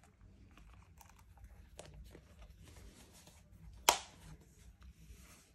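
A coated-canvas wallet being folded and handled, with a soft rustle and small clicks, then one sharp snap a little under four seconds in as the flap's press-stud is pushed shut.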